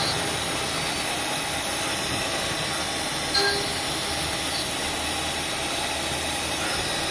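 CNC profile machining center's spindle milling an aluminium profile under coolant spray: a steady hiss and whir of the cutting, with a short whine about three and a half seconds in.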